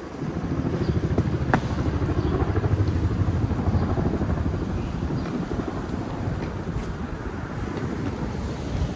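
A motor vehicle passing close by on the street: a low rumble that swells in, then slowly fades as it moves off. There is a short sharp click about a second and a half in.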